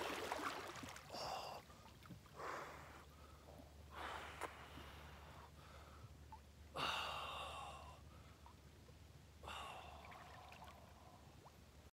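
A man breathing hard in ice-cold lake water: about six sharp, gasping breaths come one to three seconds apart, the loudest about seven seconds in, with light water sloshing as he swims. This is the forced breathing of cold-water immersion.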